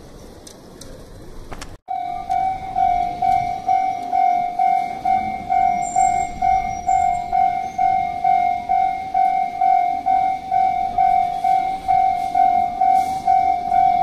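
Japanese level-crossing warning bell, its electronic tone ringing in even strikes about twice a second, signalling that a train is approaching. It cuts in suddenly about two seconds in, after a stretch of quieter street noise.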